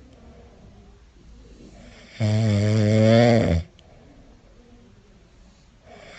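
French bulldog snoring: one loud, wavering snore about two seconds in that lasts well over a second, with only faint sound between snores and the next snore starting right at the end.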